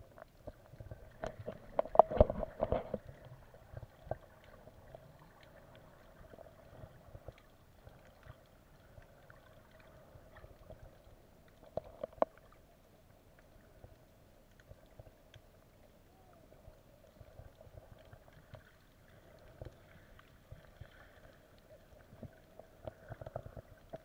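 Muffled underwater sound picked up through a camera's waterproof housing: a faint steady hum with scattered small clicks. There is a burst of knocking and clatter about two seconds in and a single sharp knock about twelve seconds in.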